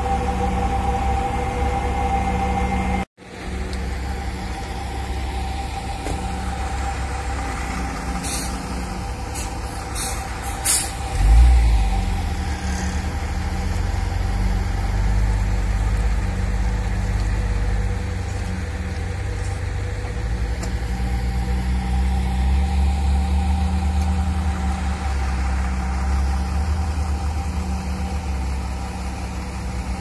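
Heavy diesel truck engines of a concrete mixer truck and concrete pump running steadily. A few short air hisses come between about 8 and 11 seconds in, and the engine revs up about 11 seconds in.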